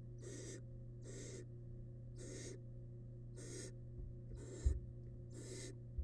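Barn owl nestlings' hissing begging calls, each a harsh breathy hiss about a third of a second long, repeated roughly once a second over a steady low hum. One dull thump about five seconds in.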